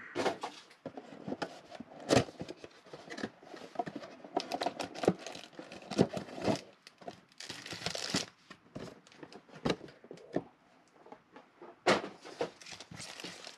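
Foil trading-card packs crinkling and rustling as they are pulled out of a cardboard mega box and handled, with irregular sharp clicks and knocks of the packs and box against the table.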